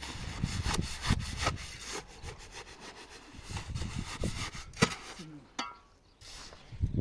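Irregular scraping strokes of a hand tool, roughly one every half second for about five seconds. A short pitched sound comes near the end.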